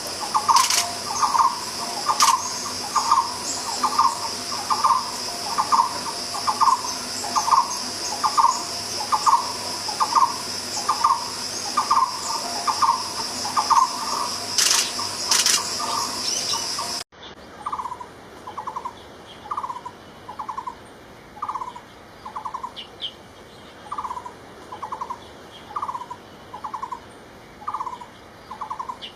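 Takur bukit barbet calling: a long series of short, trilled hollow notes, about two a second, over a steady high hiss. About two-thirds of the way through the sound cuts to a cleaner recording where the same notes come about once a second.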